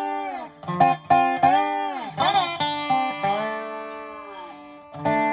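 Instrumental dobro music: plucked notes on the resonator guitar with slides in pitch between them, and a chord struck near the end, left ringing.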